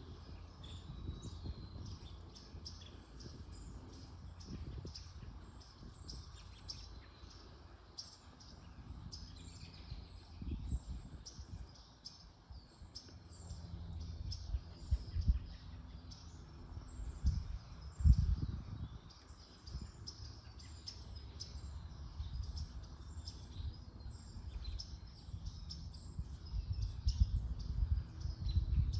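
Small birds chirping and twittering over and over in quick short calls, over a low gusty rumble of wind on the microphone that swells loudest about eighteen seconds in and again near the end.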